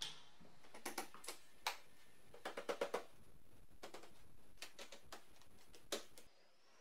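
Scattered light clicks and taps of a screwdriver on the metal fuel pump access cover and its screws in a car's floor pan, with a quick run of four clicks about two and a half seconds in. The carpet is then laid back over the cover, and the sound cuts off near the end.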